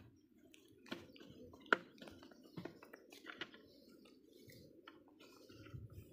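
A few light knocks and clicks from handling a plastic bucket and the fittings of a stopped diesel water pump while it is being primed with water, over a faint steady low rumble. The sharpest knock comes a little under two seconds in.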